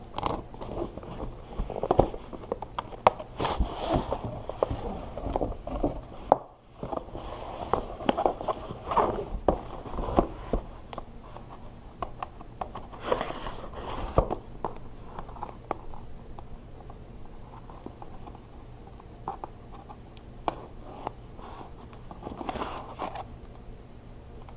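Hands working at a taped cardboard product box to open it: irregular taps, knocks, scrapes and rustles, busiest in the first half and sparser after that.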